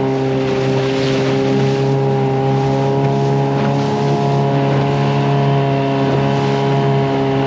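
Outboard motor on a small aluminium boat running at a steady cruising speed, its pitch unchanging, with wind and water rushing past over choppy water.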